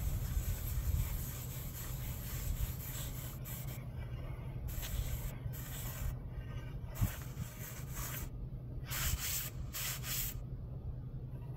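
Plastic trowel scraping and smoothing acrylic super fine stucco finish over a foam board. One long continuous pass is followed by shorter strokes about a second apart, over a steady low rumble.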